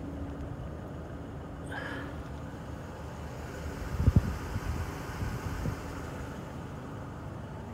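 A motor running steadily in the background, a low hum with a faint steady tone, with a short thump about four seconds in.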